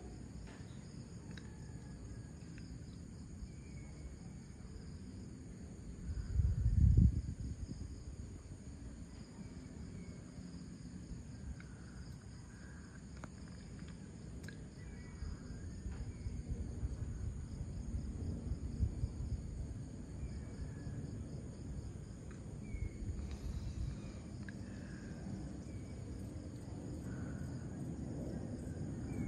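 Steady pre-dawn chorus of crickets and other insects, a fine high pulsing trill, with scattered short chirps over it. A low rumble lies underneath, and about six seconds in a brief louder low rumble is the loudest sound.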